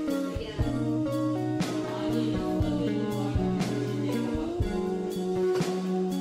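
Background music: guitar over sustained notes, with a regular drum beat.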